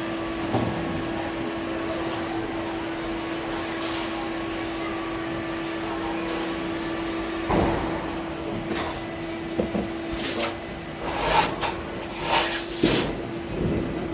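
A workshop machine's electric motor hums steadily. From about halfway through, several short bursts of scraping or rubbing come over it.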